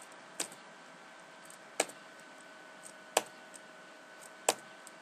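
Computer keyboard key pressed four times at an even pace, about one press every second and a half, over a faint steady hum. The key is tapped in time to place markers on a video editor's timeline.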